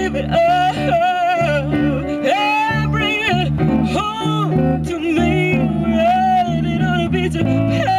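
Live jazz: a woman singing with vibrato, accompanied by an electronic keyboard and a guitar.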